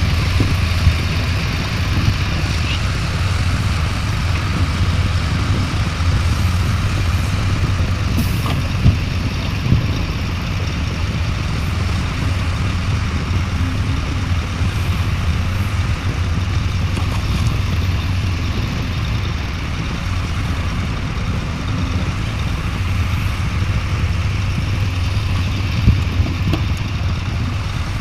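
Heavy diesel machinery engine running steadily with a low hum, with a few short sharp knocks scattered through.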